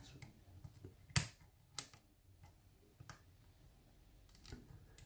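Hook pick and tension wrench working the pins of a challenge euro cylinder lock: a few faint, scattered metallic clicks, the loudest about a second in.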